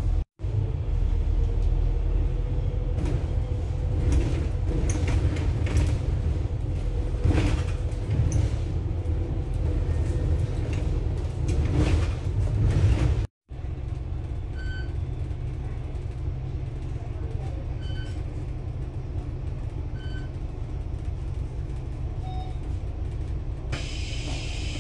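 Double-decker bus driving, heard from the upper deck: a steady low engine and road rumble with body rattles and clicks. The sound drops out briefly twice. After the second dropout the rumble is steadier, with faint short beeps every two to three seconds, and a hiss rises near the end.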